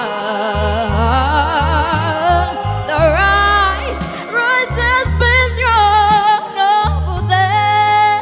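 A child singing a song over an instrumental backing track, the voice held on long notes with strong vibrato and a low bass line underneath.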